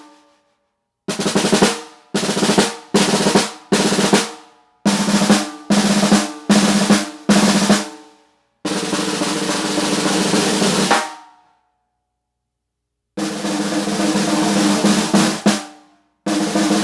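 A 14-inch snare drum tuned to about 204 Hz, snares on, played in a string of about eight short ringing strokes and then two longer rolls of two to three seconds each. Each hit leaves a ringing tone with overtones.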